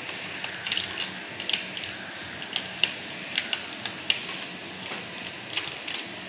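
Eating rice and fried chicken by hand from a cardboard takeaway box: short, irregular crackles and wet smacks, a dozen or so, over a steady background hiss.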